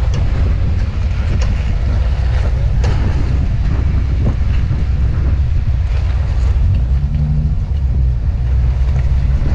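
Wind buffeting the microphone over a Jeep Wrangler's engine running at crawling speed as it climbs a rock slab, with a brief rise in engine note about seven seconds in and a few light ticks.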